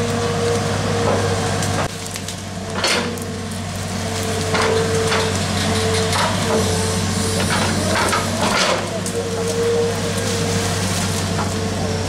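Hydraulic excavator digging: its diesel engine runs steadily under a hydraulic whine that comes and goes, while the bucket gives several short crunches and knocks as it scrapes and drops soil.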